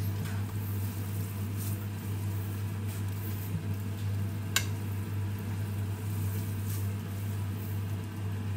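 Pancit noodles sizzling and squelching in a non-stick frying pan as metal tongs toss them, over a steady low hum; one sharp click of the tongs about four and a half seconds in.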